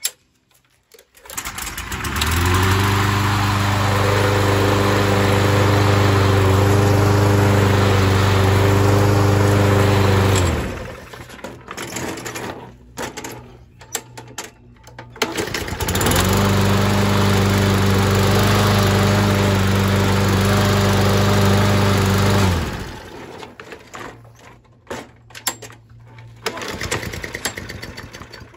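Hyper Tough walk-behind lawn mower's 125cc Briggs & Stratton engine pull-started, catching quickly and running steadily for about nine seconds before it stops and winds down. It is started again a few seconds later, runs steadily for about six seconds and winds down again.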